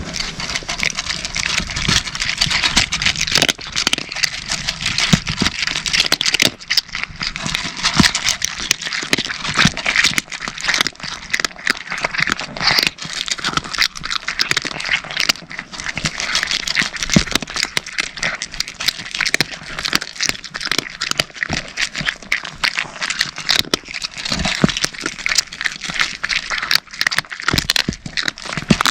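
Several cats crunching dry cat food (kibble): a dense, continuous run of crisp crunches and clicks.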